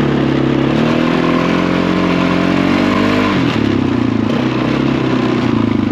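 Four-wheeler (ATV) engine running under way, its pitch creeping up for about three seconds, then dropping sharply as the throttle eases and holding steady at the lower note.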